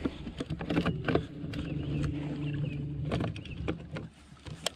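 A steady mechanical hum lasting about three seconds, with several sharp clicks and knocks around it.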